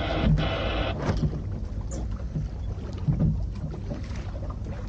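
Wind and water noise aboard a small sailing boat under way: a steady low rumble of wind on the microphone, with a louder hiss in the first second.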